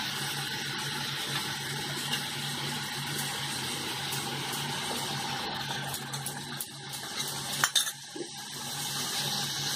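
Metal spatula stirring and scraping spice paste in a steel wok, over a steady hiss, with small knocks and one sharp clack against the pan near the end.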